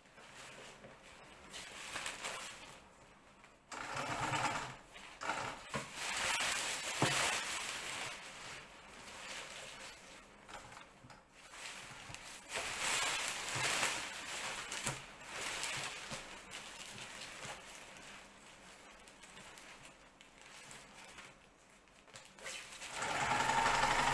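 Domestic sewing machine stitching in short runs through ripstop nylon kite fabric, with crinkly rustling of the nylon as it is pushed and pivoted under the needle. Louder patches come and go, and a longer, louder run near the end.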